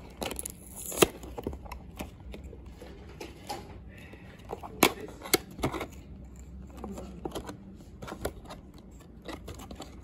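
Packaging being handled and opened by hand: rustling and crinkling with scattered sharp clicks and snaps, the loudest about a second in and twice near the middle.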